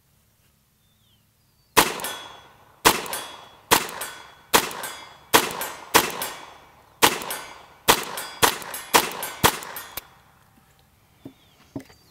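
A string of about eleven semi-automatic .22 LR shots from a Ruger Charger pistol, each a sharp crack with a ringing tail, fired at a steady pace of roughly one to two a second for about eight seconds. The string stops when the pistol fails to eject a spent case, and a few faint handling clicks follow.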